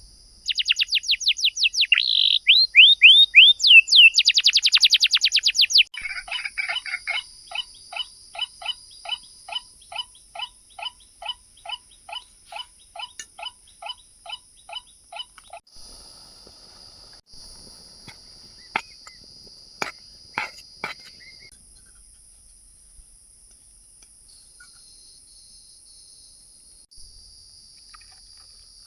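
Forest birdsong: a loud, fast run of high downward-sweeping notes for the first few seconds, then a lower call repeated about twice a second that fades out over ten seconds. Steady high insect trilling runs underneath, with a few sharp clicks near the middle.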